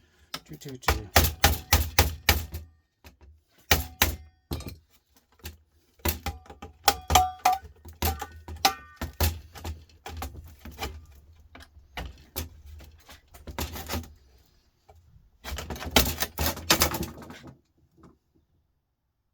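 Irregular clusters of sharp metallic clicks, knocks and clatters as a desktop computer power supply's metal case is worked open with tools, with a brief ringing note about seven to nine seconds in.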